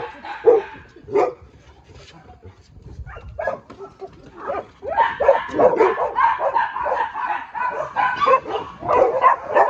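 A pack of shelter dogs barking and yipping. There are a few single barks at first; from about five seconds in, many dogs bark over one another in a dense chorus.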